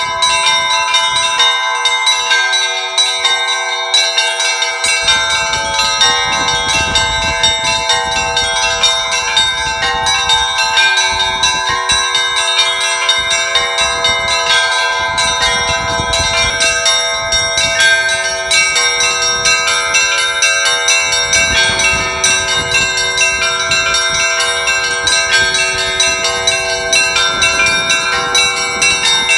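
Orthodox church bells on a belfry rung together in a continuous peal: a dense, rapid run of strikes over many overlapping ringing tones.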